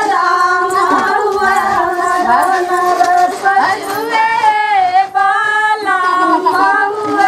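A group of women singing together in long, wavering held notes, with no instruments or drums.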